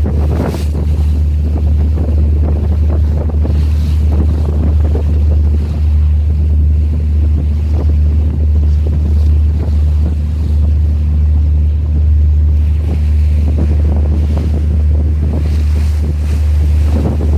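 Wind buffeting the microphone at sea: a strong, steady low rumble under a hiss of wind and water washing along a ship.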